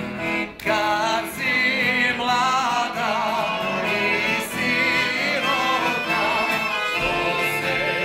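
A man singing a folk song with a wavering vibrato, accompanied by a piano accordion and an acoustic guitar; the music comes in strongly about half a second in.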